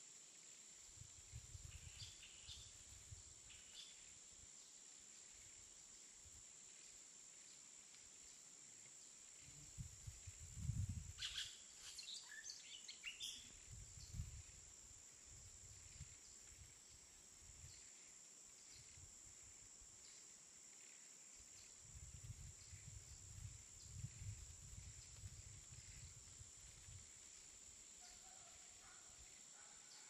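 Jungle ambience: a steady high-pitched insect drone, with a cluster of short bird calls about eleven to thirteen seconds in. Low rumbling comes and goes several times underneath.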